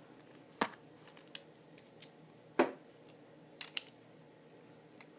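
Sharp plastic and metal clicks of an L-Drago Guardian Beyblade top being fitted together by hand, its face bolt, wheels, track and bottom parts clicking into place. There is a handful of separate clicks, the loudest about two and a half seconds in and a quick pair a second later.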